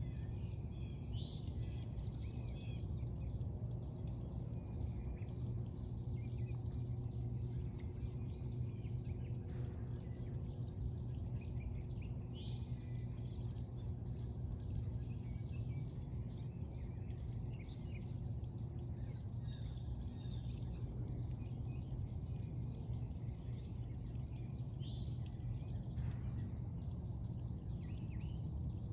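Steady low outdoor background noise with scattered short bird chirps.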